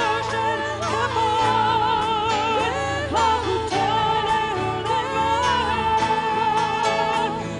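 Live worship band music with singing: a wavering melody line over sustained low chords.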